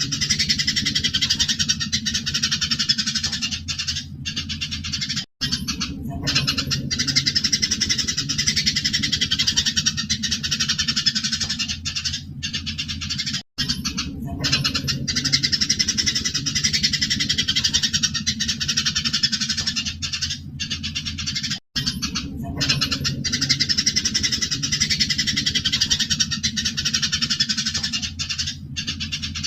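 Eurasian tree sparrows chattering in a dense, continuous flurry of shrill chirps: the excited calls of sparrows fighting. The recording loops about every eight seconds, with three brief gaps at the loop points, over a steady low hum.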